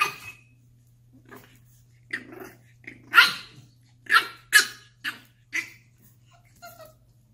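French Bulldog puppy barking and growling in play: a string of short, sharp barks, the loudest about three seconds in.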